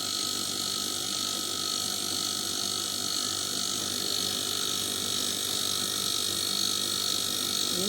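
A steady machine noise, an even hiss with a couple of fixed whining tones, running unchanged.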